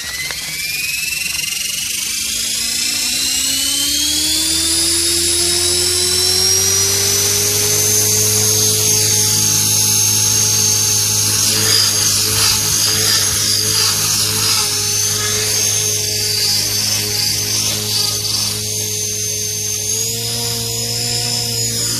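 Radio-controlled helicopter spooling up. A whine rises steadily in pitch over the first five or six seconds, then holds as a steady high whine with rotor hum while it lifts off and hovers, stepping up slightly in pitch near the end.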